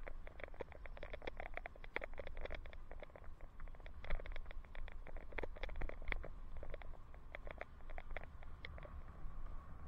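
Wind rumble on a helmet-mounted camera during a bicycle ride, with irregular clicking and rattling from the bike and mount as it rolls over the road.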